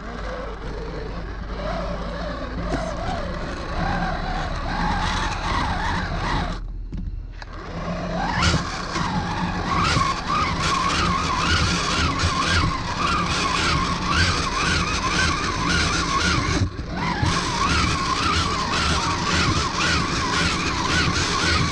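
Blender running hard, blending oranges with water, its motor pitch wavering under the load. It cuts out about six and a half seconds in, then spins back up with a rising whine a second later, and stops again briefly near the end.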